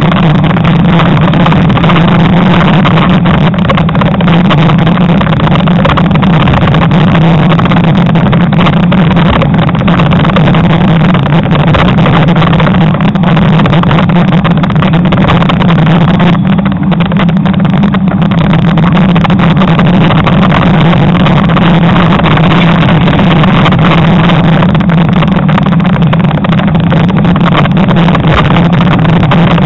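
Loud, steady wind rush and road rumble on a bicycle-mounted camera's microphone while riding at about 23 mph.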